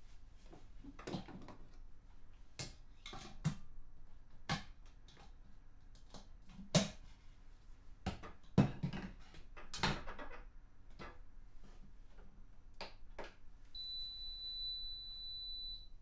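Glass carafe and filter cone of a DeLonghi Clessidra drip coffee maker being handled and set onto the machine's base: a series of clinks and knocks, the loudest about 7 and 9 seconds in. Near the end a steady high electronic beep sounds once and holds for about two seconds.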